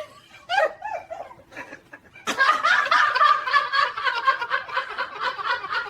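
Laughter: a few short chuckles, then from about two seconds in a long run of rapid, helpless laughing.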